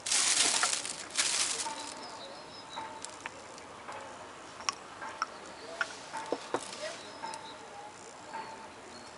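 Thin plastic bag rustling twice near the start, then quieter handling with scattered small clicks and taps, and faint short chirps throughout.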